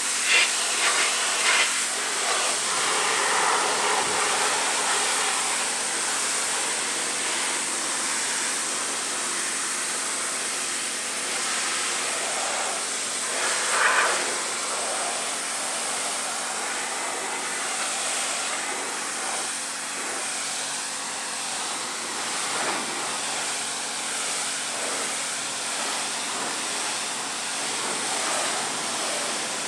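Pressure washer running steadily, its high-pressure water jet hissing as it sprays a car's rear bodywork and number plate. There are brief louder spatters near the start and about halfway through.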